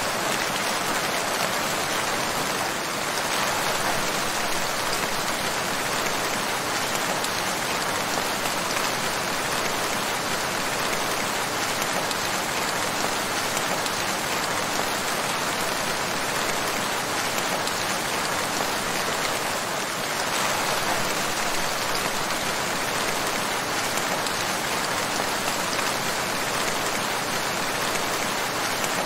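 Steady rain falling: an even, unbroken hiss with no thunder or other sounds in it.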